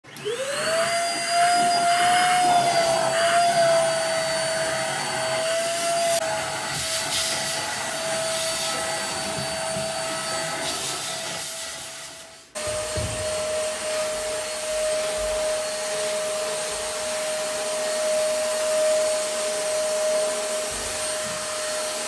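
Small stick vacuum cleaner running: the motor spins up with a rising whine, then holds a steady high-pitched whine over a rush of air. The sound cuts off abruptly about twelve seconds in and picks up again at once, slightly lower in pitch.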